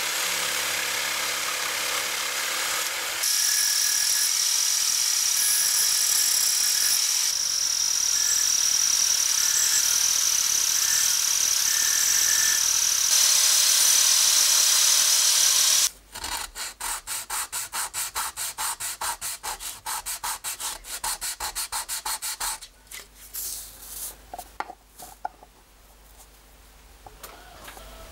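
A jigsaw cuts through a wooden strip. About three seconds in, an angle grinder with a thin cut-off disc starts cutting a thin steel strip, running steadily with a high whine. It stops suddenly about sixteen seconds in, followed by even, rapid hand strokes of a file rasping wood, then quieter, irregular scraping.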